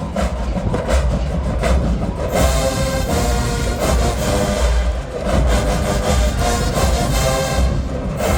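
College marching band playing: a full brass section over a heavy drumline with deep bass-drum hits.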